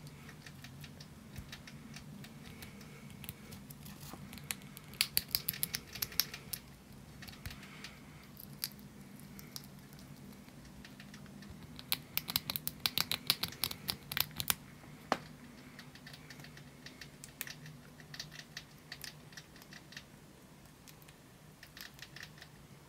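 A degu gnawing and chewing a small crunchy treat held in fingers: bursts of rapid, sharp crunching clicks, heaviest about five seconds in and again around twelve to fourteen seconds, over a faint steady hum.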